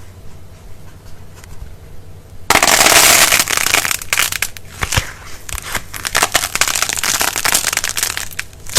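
Crumbly material being crushed: a few faint clicks, then about two and a half seconds in a sudden loud crunch that breaks into a dense, steady stream of sharp crackles.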